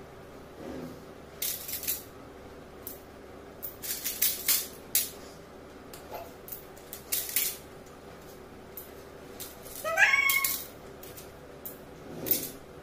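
Coins clinking against each other and small steel bowls as they are picked up and set down, in scattered short clicks. About ten seconds in, a short meow-like cry rising in pitch is the loudest sound.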